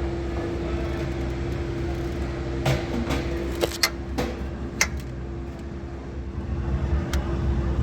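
Small car engine running steadily with an even hum, with a few sharp clicks and knocks from hand work on it in the middle.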